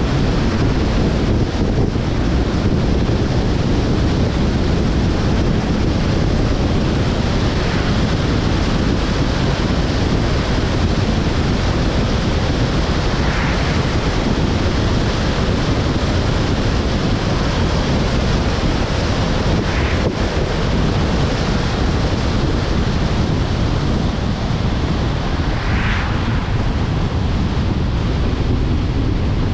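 Steady rush of wind on the microphone and tyre noise from a car driving at road speed, with a few faint brief swishes along the way.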